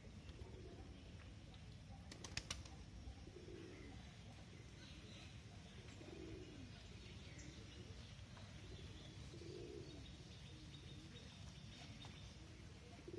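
A bird calling faintly: a low, short call repeated about every three seconds. A few sharp clicks about two seconds in.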